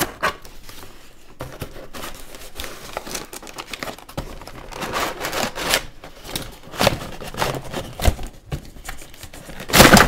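Cardboard and plastic toy packaging being handled, crinkling and rustling in irregular bursts, loudest near the end.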